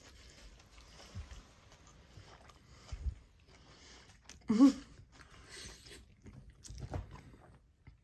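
A person eating spaghetti: a few soft knocks of a fork against the plate, a short voiced "mm" about halfway through that is the loudest sound, then quieter chewing and slurping of the noodles.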